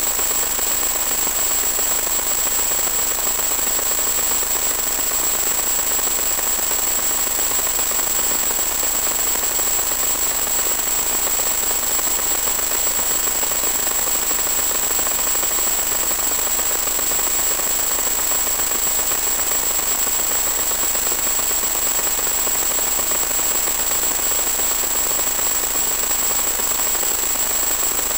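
Steady hiss of static from the 1.2 GHz analog video link's audio channel, with a constant thin high-pitched whine on top. It stays unchanged in level while the throttle drops.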